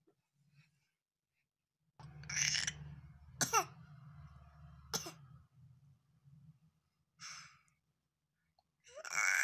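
A baby's short breathy sounds, with a brief falling squeak about three and a half seconds in and a louder voiced sound near the end.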